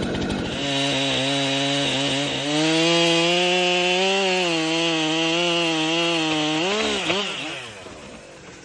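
Two-stroke chainsaw throttled up from idle and cutting a small felling notch in an oak at high revs, its pitch sagging briefly a few times as the chain bites. About seven seconds in the throttle is released, the revs wobble and drop, and the sound fades away.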